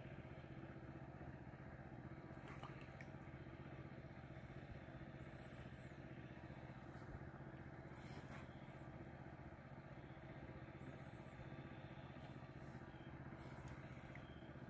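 Faint, steady drone of a distant engine, which the angler took for an ATV or for a pump drawing water. A few short high chirps come and go over it.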